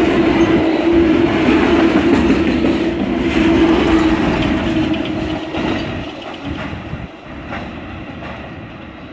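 Amtrak Auto Train's autorack cars rolling past close by: a loud rumble and clatter of steel wheels on the rails, with a steady hum. It fades away from about five seconds in as the last car passes and the train moves off.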